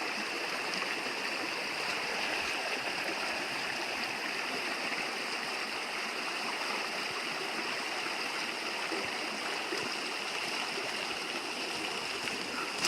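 Steady rushing and trickling of a woodland stream.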